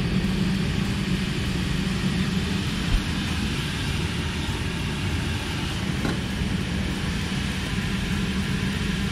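Electric bouncy castle blower fan running steadily, a constant hum as it keeps the castle inflated. A short knock about three seconds in.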